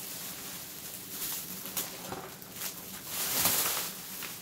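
Handling noise from a Dyson DC18 upright vacuum being worked on by hand: plastic rustling with a few light clicks, and a louder rustle about three seconds in.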